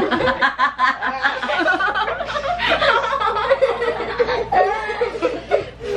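Several people laughing hard together, with quick repeated pulses of laughter near the start and overlapping chuckles and giggles after.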